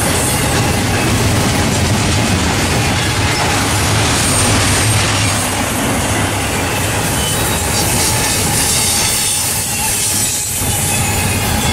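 Double-stack intermodal freight cars of a Norfolk Southern train rolling past: steady loud wheel-on-rail noise with a faint thin squeal from the wheels.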